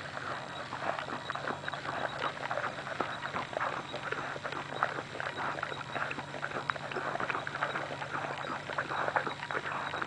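Mother dog licking and nibbling at a newborn puppy: a run of quick, irregular wet smacking and clicking sounds as she clears the birth sac and rubs the just-born puppy to stimulate it.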